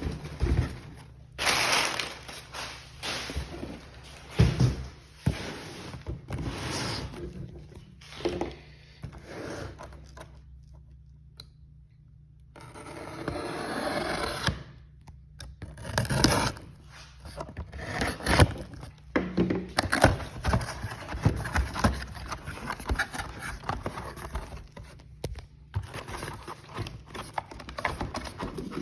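Unboxing and handling noises from a firing-system kit: scrapes, knocks and thunks of parts and packaging being moved. There is a brief lull about ten seconds in, then a couple of seconds of steady rustling.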